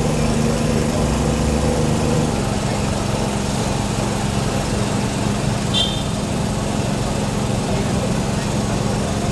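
An engine running steadily with a low, even hum, its pitch shifting slightly a couple of seconds in. A short high chirp sounds about six seconds in.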